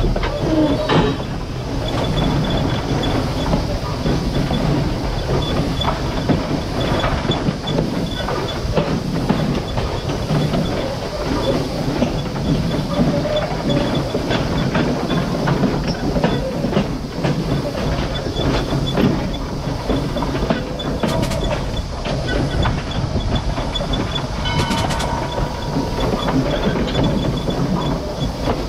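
Pennsylvania Railroad 0-6-0 steam locomotive rolling along the track, heard up close at its running gear: a steady clatter of wheels on rail with many irregular knocks and clicks.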